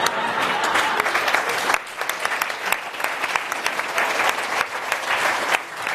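Audience applauding, many hands clapping densely, thinning briefly about two seconds in and then going on.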